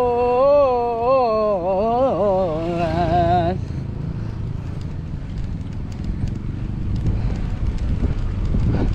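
A rider's voice in a long, wavering sung "ohhh" for about the first three and a half seconds, then wind rushing over the camera's microphone and road-bike tyre noise while riding.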